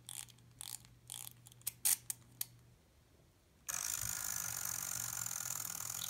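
Clockwork wind-up mechanism of a small mermaid swim toy: a run of quick ratchet clicks as it is wound, then after a short pause the spring motor whirs steadily as it runs.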